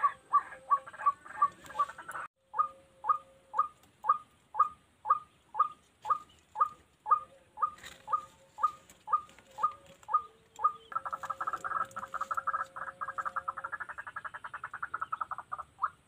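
White-breasted waterhen (ruak-ruak) calling: a steady series of short 'kruak' notes, about two a second. About eleven seconds in, these break into a faster, continuous chattering run that stops shortly before the end.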